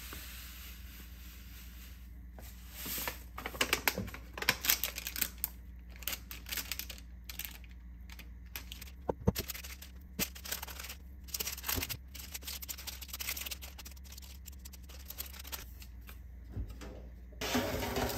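Spoon and wooden spatula scraping and tapping against a mixing bowl while thick cookie dough is stirred and scooped, in quick irregular clicks and scrapes, with a louder clatter near the end.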